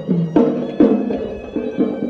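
Traditional Sri Lankan temple hewisi music: a reedy pipe playing a quickly stepping melody over sharp drum strokes.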